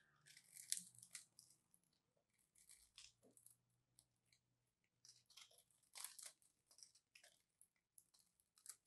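Small blade cutting and scraping into a dry bar of soap: quiet, crisp crunchy cuts in short clusters as little cubes of soap crumble off.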